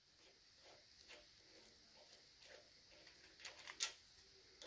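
Faint, light metallic clicks and ticks of a rocker arm lock nut being spun off its stud by hand, with one sharper click about four seconds in.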